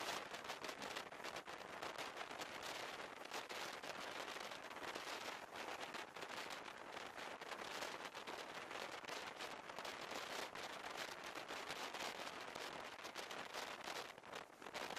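Steady rushing noise with dense crackling and clattering as two passenger trains run close alongside each other.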